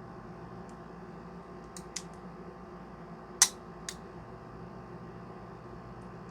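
CZ Shadow 2 pistol's action being worked and dry-fired: a few small metallic clicks, then one sharp, loud click about three and a half seconds in and a lighter click just after.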